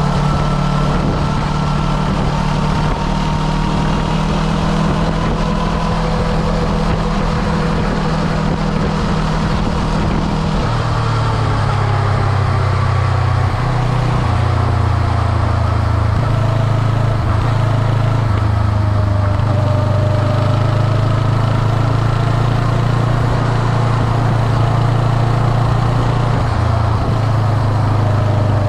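Motorcycle engine running at highway cruising speed under steady road and wind noise. Its low note steps down to a lower pitch about a third of the way in and then holds.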